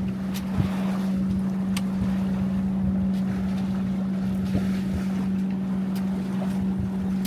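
Wind and water noise aboard a Catalina 22 sailboat under way, under a steady low hum, with a few faint clicks scattered through it.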